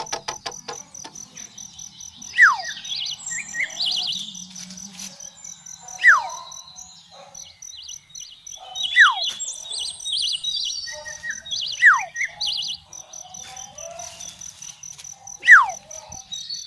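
Birds calling over a steady, rapidly pulsing insect trill: a loud whistle sweeping steeply down in pitch repeats five times, about every three seconds, with smaller bird chirps between.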